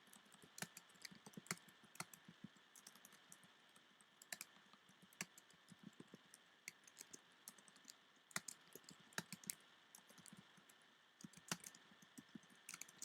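Computer keyboard typing: faint key clicks in irregular runs, broken by short pauses.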